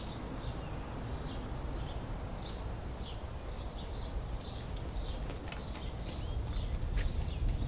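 Small birds chirping: short high notes repeated about every half second, coming more often in the second half, over a low steady rumble. A few faint clicks near the end.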